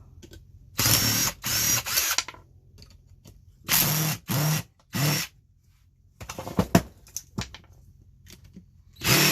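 Power screwdriver run in short bursts to back screws out of a mini air compressor's housing: about six bursts of half a second or so, several in quick succession during the first five seconds and another near the end, with a few light clicks of handled parts between.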